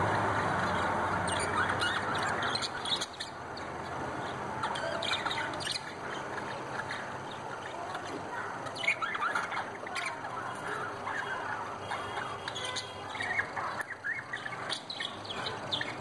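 Caged budgies chirping in many short, irregular calls over a steady background hiss.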